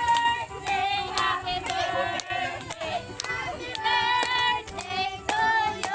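A group of adults and children singing together, with steady hand clapping about twice a second.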